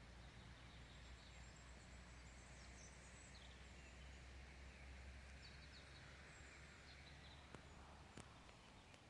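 Near silence: faint outdoor ambience with a few distant bird chirps, and two small sharp clicks near the end.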